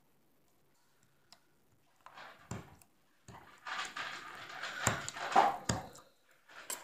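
Pink slime being pressed and squished with fingers and a white plastic tool, giving sticky squelching and small crackling clicks. It is almost silent at first and starts about two seconds in, loudest from about four to six seconds in, with a couple of sharp clicks.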